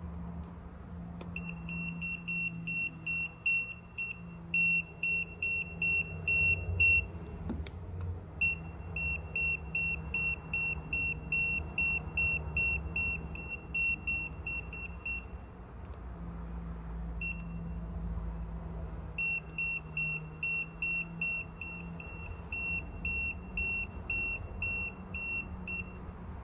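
Aneng 681 multimeter's non-contact voltage (EF) detector beeping rapidly, about four to five short high beeps a second, in runs that stop twice and start again as it is moved near and away from a live 240 V mains outlet and cable. The beeping signals that mains voltage is detected.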